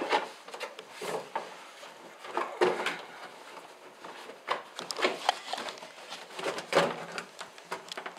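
Plastic inner wheel-arch liner of a Porsche 944 being worked out of the front wheel housing, scraping and knocking against the fender edge in a run of irregular rubs and clatters.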